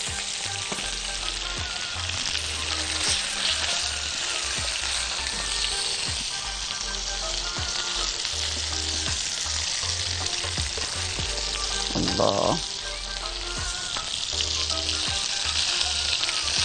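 Grilled lamb ribs sizzling steadily in a very hot grill pan. A brief louder sound comes about twelve seconds in.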